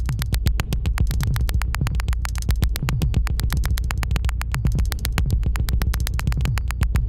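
Electronic synthesizer sound from the Moebius Lab app: fast, even clicking pulses, about a dozen a second, over a steady low bass drone with a repeating low figure.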